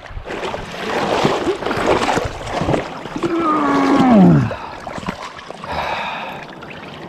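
River water splashing and rushing close to the microphone, with handling and clothing rustle. About three seconds in, the angler lets out one long, falling groan of dismay, as a hooked trout has just come off the line.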